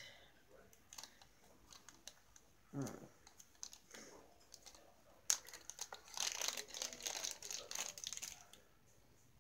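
Packaging crinkling and rustling as it is handled, a dense stretch of crackly rustle with many small clicks lasting about three seconds from about halfway through, after a few faint taps.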